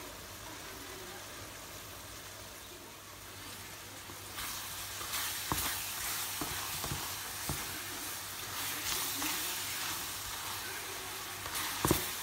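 Chopped pineapple cooking in sugar syrup in a nonstick wok, sizzling softly. About four seconds in, a wooden spatula starts stirring it, scraping through the fruit with a few sharp knocks against the pan.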